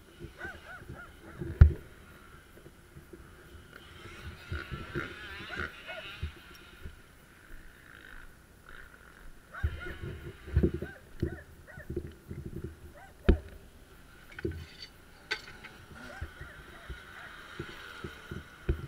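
Dirt bike engine running at low revs, heard muffled through the camera housing, with irregular thumps and knocks as the bike rolls over the rough dirt track; the sharpest knocks come about a second and a half in and again near the middle.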